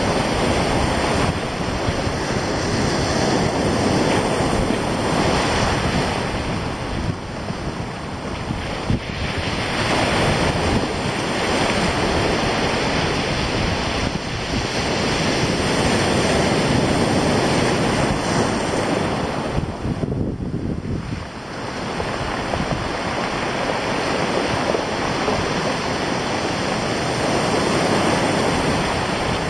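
Sea surf breaking and washing over a stony shore, swelling and fading every several seconds, with wind buffeting the microphone. There is a brief lull about twenty seconds in.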